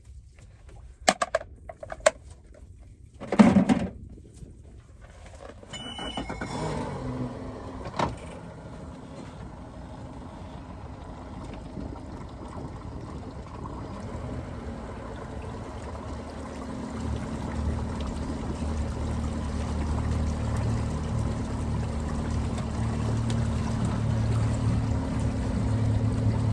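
A boat's motor starts about six seconds in and runs steadily, getting louder over the second half. Before that come a few knocks and a louder thump.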